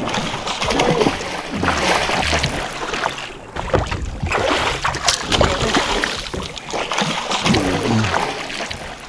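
A hooked muskie thrashing and splashing at the surface beside the boat: a run of irregular splashes over a steady wash of water noise.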